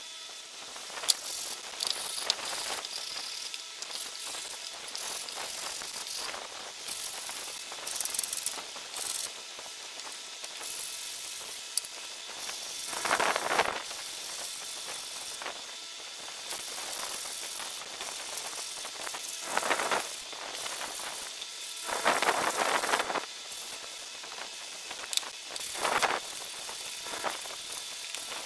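Hands working a wooden gage-block case and its slotted insert on a bench: rustling, light knocks and clicks of wood, and a few louder scraping strokes of about a second each, typical of hand sanding.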